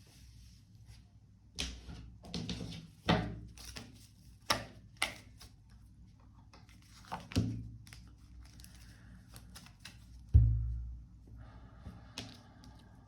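Tarot cards being handled on a table, drawn and laid down: irregular snaps and slaps, with a heavy thud about ten seconds in and another at the very end.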